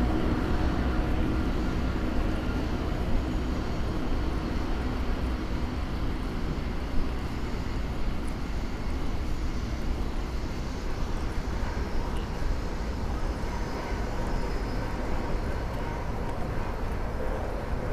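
Steady low rumble of distant engines that slowly eases off, with a short knock about three seconds in and another about seven seconds in.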